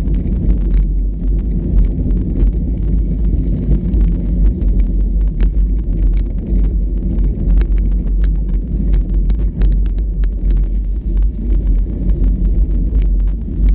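Off-road vehicle running over a rough trail: a steady low engine and drivetrain rumble with frequent small knocks and rattles from the jolting ride.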